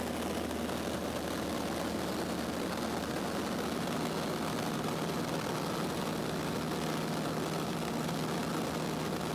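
Cessna 152's four-cylinder Lycoming engine and propeller running steadily in flight, heard from inside the small cabin along with the rush of air over the airframe.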